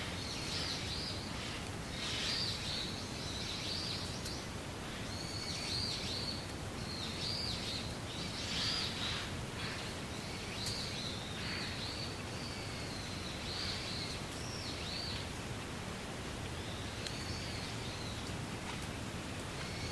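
Wind blowing through reeds, a steady rustling hiss, with a bird calling over it again and again in short high chirps that pause briefly about three-quarters of the way through.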